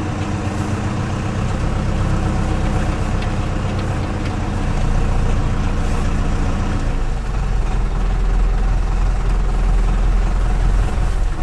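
IHC 745 tractor's four-cylinder diesel engine running, heard from inside the cab while the tractor is driven slowly. About seven seconds in the engine note changes, its deep low end growing stronger.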